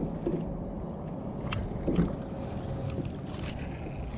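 Choppy water slapping against a plastic kayak hull, with handling noise from a spinning rod and reel: a single sharp click about one and a half seconds in and a louder bump around two seconds.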